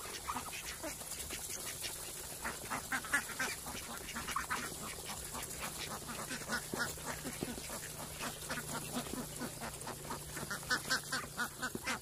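A flock of Muscovy and mallard-type ducks feeding from bowls of grain: a rapid, irregular clicking and dabbling of bills in the feed, with quacks among it. The pecking grows louder near the end.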